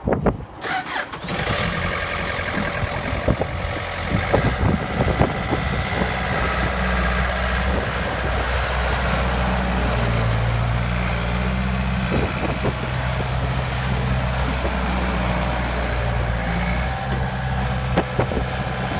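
Cummins four-cylinder diesel engine of a 1998 Case 1845C skid steer starting up about a second in, then running steadily. Its engine speed steps up around the middle, and a few knocks are heard as the machine works.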